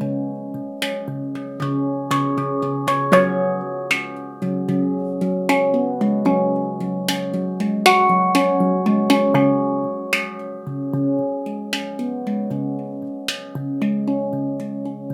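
Leaf Sound Sculpture handpan in a C# Ragadesh scale, played by hand in a flowing melody. Notes are struck several times a second, each ringing on with layered overtones over a low sustained bass.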